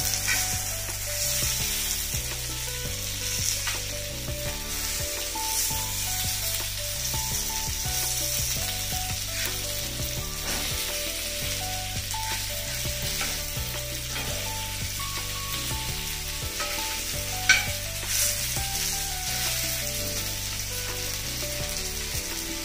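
Fish steaks shallow-frying in a little oil on a cast-iron dosa tawa, a steady sizzle, with a metal spatula scraping and knocking on the pan as the pieces are turned. One sharp knock comes about three-quarters of the way through.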